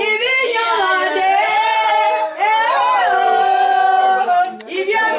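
Voices singing a song with long held notes; a short click near the end.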